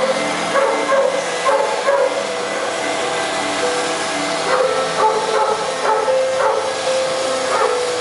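Oxy-fuel cutting torch hissing steadily as it cuts 6 mm carbon-steel plate. Short pitched sounds come and go over it about once a second.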